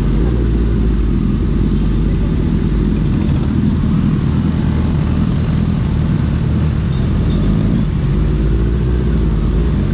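Suzuki Hayabusa Gen3's inline-four engine running through an Ixil aftermarket exhaust, cruising at fairly steady revs.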